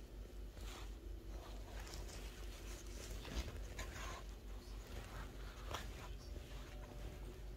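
Maltese puppy sniffing at a person's trousers, in short irregular snuffling bursts, with faint rustling of cloth.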